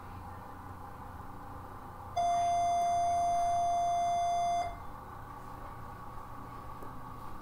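A single steady electronic beep, one unchanging tone about two and a half seconds long, starting about two seconds in, over faint room hum.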